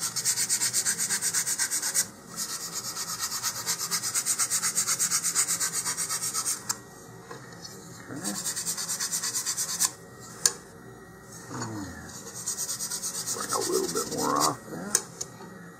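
Fine sandpaper on a sanding block rubbing back and forth along the edge of a thin laser-cut wooden rocket fin, rounding it off. The strokes come quick and even in four runs, with short pauses about 2, 7 and 10 seconds in.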